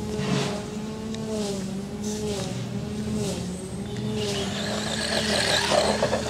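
Brushed electric motor of an FTX Tracer RC buggy whining, its pitch rising and falling as the throttle is worked. About four seconds in a loud hissing rush of tyres skidding on loose dirt joins it and builds to a peak near the end.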